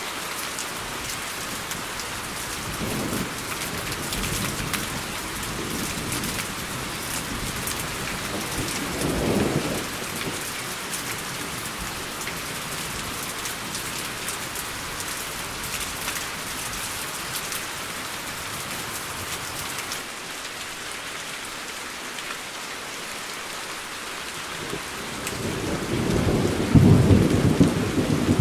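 Steady rain falling, with thunder rumbling: brief low rolls about 3 and 9 seconds in, then a louder, longer roll building near the end.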